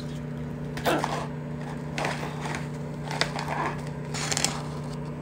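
Foil-lined freeze-dried meal pouch being opened and handled: several crinkling rustles of the stiff foil, the loudest about a second in and again near the end, over a steady low hum.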